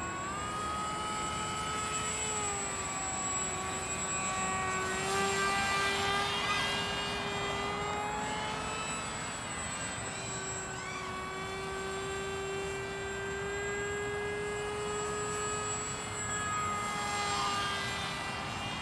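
Electric RC flying wing in flight: its 2204 2200kv brushless motor and 6x3 propeller give a steady high-pitched buzz whose pitch drifts slightly with throttle. It grows louder as the plane passes close, about five seconds in and again near the end.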